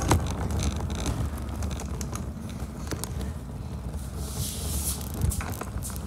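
Kick scooter wheels rolling on a smooth concrete floor: a steady low rumble with scattered clicks and rattles, and a short hiss a little past four seconds in.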